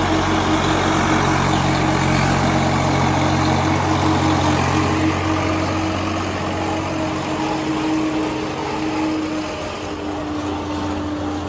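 Tractor engine and farm machinery running steadily, with a loud rushing noise that eases after about five seconds.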